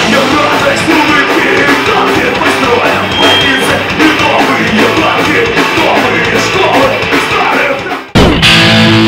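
Live rock band playing: a male singer at the microphone over electric guitars, bass guitar and drums, loud throughout. About eight seconds in it cuts abruptly to a loud, steady held sound.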